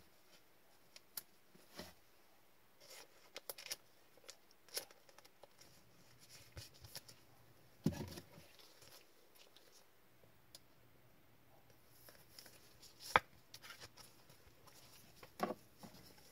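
Faint, scattered clicks and taps of hockey cards in rigid plastic top loaders being handled and set down on a table, the sharpest clicks about eight and thirteen seconds in.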